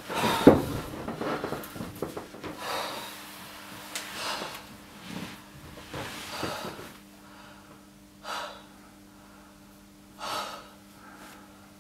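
Heavy breathing and gasps from a man winded from dragging a limp body. The breaths come about once a second at first and then space out, with two louder ones near the end, over a faint steady hum.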